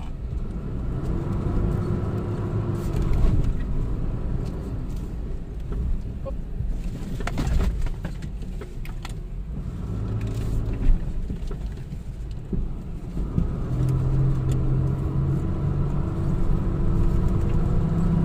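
Off-road SUV engine running under load, its pitch rising and falling several times as it revs up and eases off, with a few sharp knocks near the middle.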